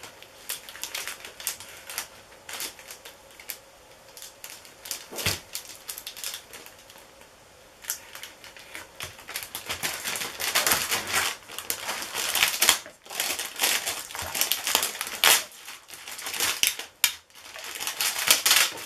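Plastic vacuum-bag film being peeled off a cured composite tube and crumpled by hand, crinkling and crackling in irregular bursts. It gets busier and louder about halfway through.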